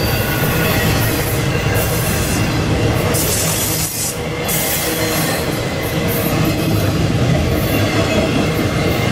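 Intermodal container cars of a freight train rolling past at speed: a steady loud rumble of steel wheels on rail with faint high wheel squeal, dipping briefly about four seconds in.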